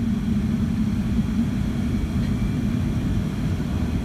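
Steady low rumble and hum inside the cabin of a Boeing 757-200 taxiing after landing, with the engines at idle.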